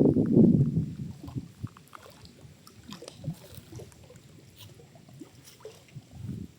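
Water sloshing and gurgling, loud for about the first second, then dying down to scattered small splashes and drips.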